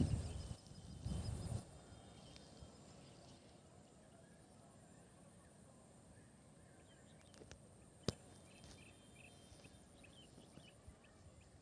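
Quiet outdoor ambience: a low rumble in the first second and a half, then near-quiet with faint short high chirps and a single sharp click about eight seconds in.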